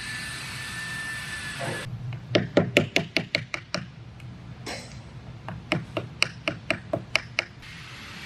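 Round wooden mallet tapping a chisel into a figured maple rifle stock to inlet the lock and trigger parts. The strikes come in two quick runs of about ten blows each, about five a second, the first about two seconds in and the second in the second half.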